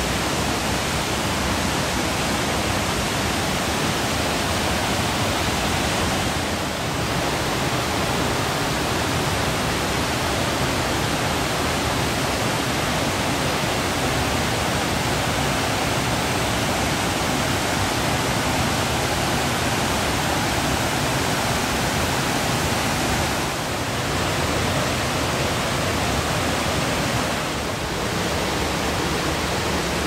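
Mountain stream rushing and cascading white over bedrock ledges in small falls and rapids: a loud, steady rush of water.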